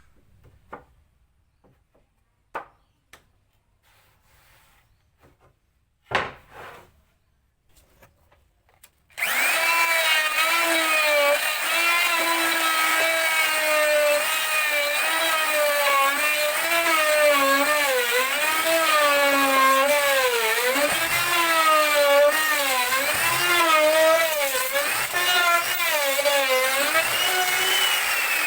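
A few light knocks, then about nine seconds in an electric power tool starts up and runs loudly on wood, its motor pitch dipping and recovering as it cuts.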